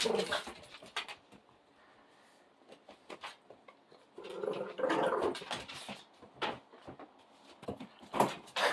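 A Presa Canario puppy and a Boston Terrier play-fighting: scuffling, with sharp clicks scattered through, a longer noisy dog sound about four seconds in, and a loud burst near the end.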